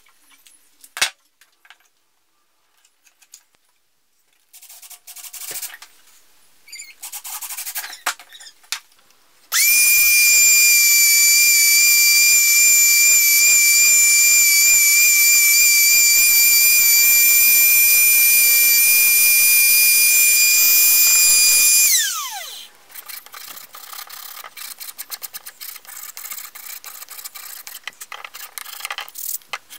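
Handling clicks and rustling, then a router running at full speed with a steady high whine for about twelve seconds, switched off and winding down. Quick, even rubbing strokes of a hand tool smoothing the edge of a plywood wheel follow.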